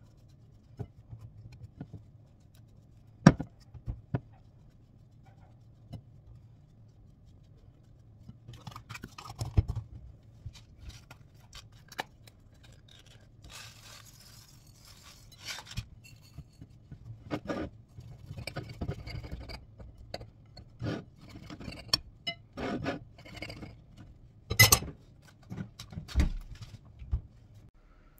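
Table knife scraping butter across a slice of bread, then a rustling pour from a cardboard box onto it, with scattered knocks and clinks of kitchen utensils over a low steady hum.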